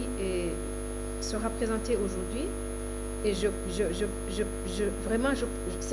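Steady electrical mains hum on the sound feed, several constant tones at once, under a woman's voice speaking into a microphone.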